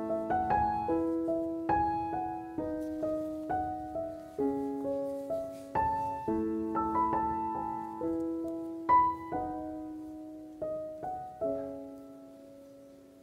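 Soft piano music: single struck notes and small chords that ring and die away, fading out over the last few seconds.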